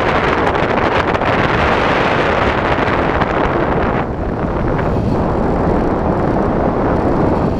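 Loud, steady wind rush over the onboard camera's microphone on an FPV RC plane gliding with its motor throttled off, with no motor whine heard. The hiss turns duller about four seconds in.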